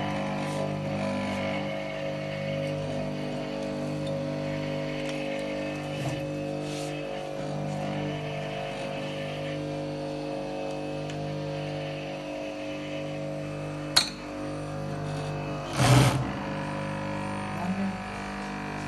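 Yamato industrial sewing machine's motor running with a steady hum. A sharp click comes near the end, followed a couple of seconds later by a brief louder burst.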